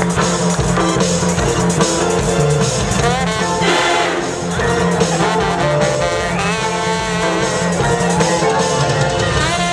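College marching band playing, brass carrying a melody with sliding notes over a steady low part.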